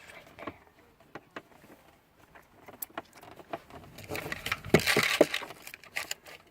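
Scattered clicks and knocks of hard plastic dashboard trim and screws being handled and fitted, with a busier run of rattling clicks about four to five seconds in.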